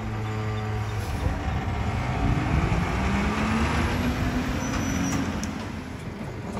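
Diesel engine of a McNeilus split rear-loader garbage truck revving up steadily over about three seconds, then easing back down.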